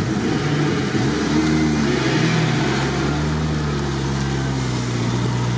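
Suzuki Samurai's engine revving under load as it crawls through deep mud. The revs rise and fall between one and two seconds in, then hold steady.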